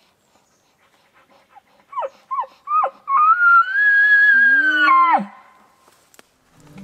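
Bull elk bugling: three short falling squeals, then a long high whistle held about two seconds, with a low growl sounding under its second half. The call ends in a sharp drop in pitch.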